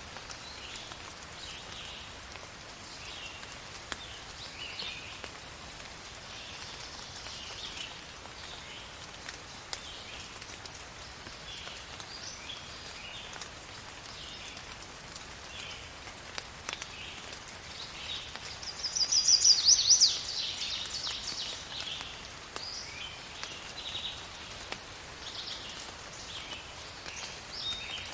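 Steady rain hiss with short, high animal calls repeating every second or so throughout. A loud, rapid trill rings out about two-thirds of the way through and lasts about a second and a half.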